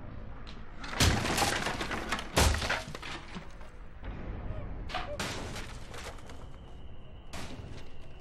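Film sound effects of violent smashing and breaking. A loud crash about a second in carries on for over a second, a second heavy hit comes near two and a half seconds, and lighter crashes follow around five and seven and a half seconds in.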